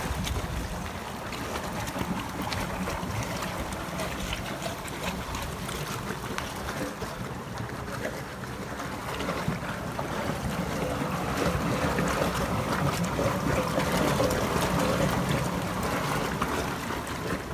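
Water gushing from a dam's outlet pipe into a concrete basin and rushing down a concrete channel: a steady rushing noise that grows louder in the second half.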